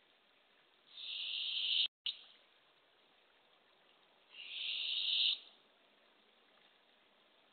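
Barred owlet giving its raspy begging hiss twice, each call about a second long and growing louder before it stops: the call of a hungry owlet begging for food.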